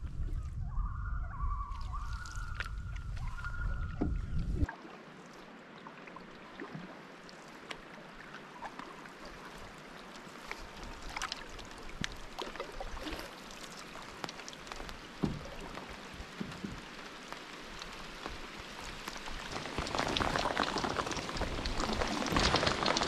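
Rain falling on a lake: a fine patter of drops hitting the water that grows louder and denser near the end. Before it, for about the first five seconds, a low wind rumble with a few short tones, which cuts off suddenly.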